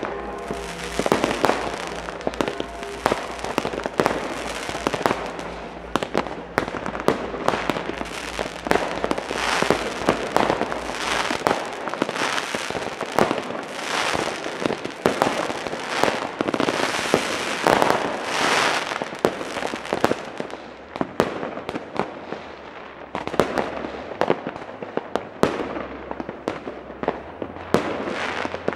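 Fireworks: a dense, unbroken barrage of sharp bangs from rockets and firecrackers, with crackling and hissing bursts, several bangs a second. It thins out a little about two-thirds of the way through.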